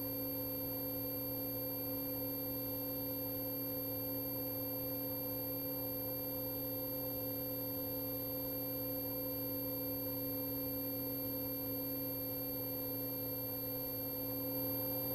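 Steady hum made of a few constant tones, unchanging throughout.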